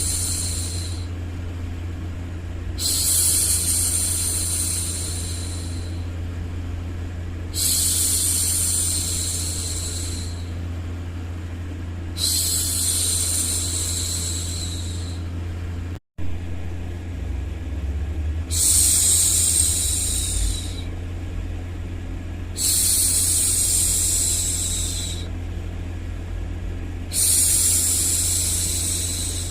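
A woman's long 'shhh' hushing sounds, each hiss two to three seconds long and repeated about every four to five seconds, over a continuous low rumbling noise bed. The sound cuts out for an instant about sixteen seconds in.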